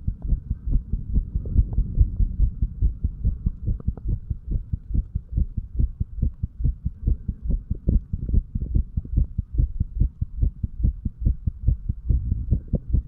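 A man's heartbeat heard at the chest over the tricuspid valve area: a steady rhythm of low thumps.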